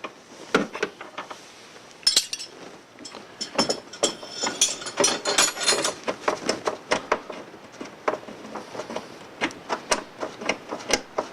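Open-end wrenches clicking and clinking against a hose fitting as the service hose is loosened and unscrewed: a scatter of short metallic taps, busiest a couple of seconds in.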